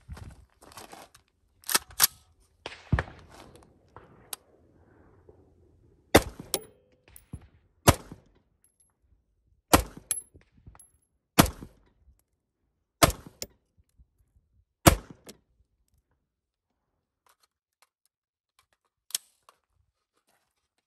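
AR-15-style rifle in .223/5.56 firing a string of sharp single shots, about one every one and a half to two seconds, with a longer pause before a last shot near the end.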